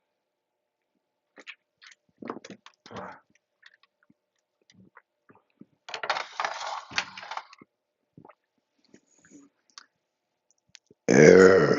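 A loud, low-pitched burp near the end, brought up by gas from chugging carbonated soda, after a few seconds of small clicks and a short breathy rush.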